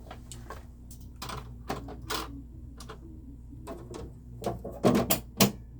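Light clicks and knocks of small diecast toy cars being handled and set down, with a louder cluster of clatter near the end.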